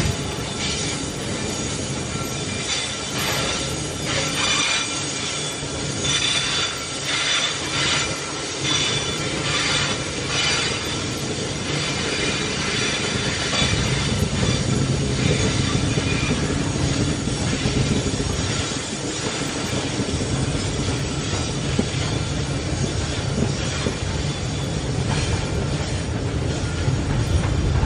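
Loaded iron-ore gondola wagons rolling slowly past with a steady low rumble of wheels on rail. High wheel squeal rises and falls over it, strongest in the first half.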